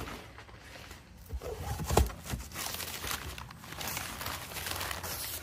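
Crumpled brown packing paper rustling and crinkling as it is pulled out of a cardboard box, with a single thump about two seconds in.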